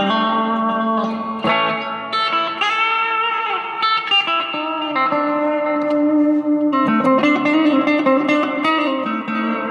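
Telecaster-style electric guitar played through a fairly clean, bluesy amp tone: single-note blues licks with bent notes and ringing chords.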